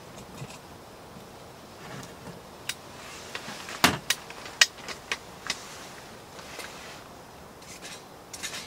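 Scattered clicks and knocks of hard objects being handled, over a faint steady hiss; the sharpest knocks come in a cluster about four to five and a half seconds in.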